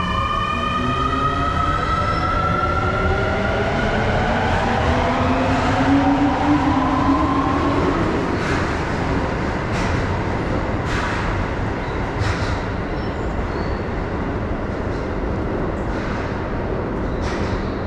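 Subway train pulling out of the station: the electric traction motors give a whine in several tones that climbs in pitch as the train accelerates, dying away about halfway through. A steady rumble of the departing train carries on, with a few sharp clicks later on.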